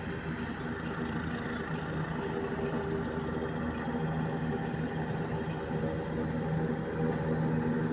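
Light single-rotor helicopter hovering overhead: a steady drone of engine and rotor with a low hum, growing a little louder towards the end.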